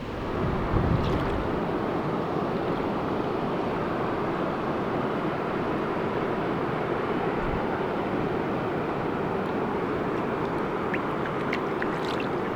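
Steady rushing noise of moving water, starting abruptly a moment in, with a few faint clicks near the end.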